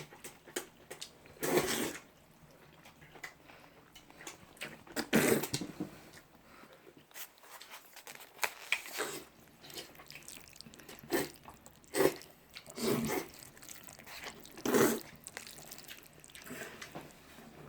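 Irregular short bursts of rustling and handling noise, a few seconds apart, in a small room.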